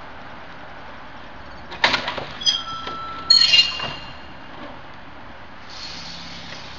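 Knocking and high-pitched squealing from a log swivel post as a one-ton log is swung around on it: a cluster of knocks about two seconds in, then squeaks and a louder squeal a second or so later.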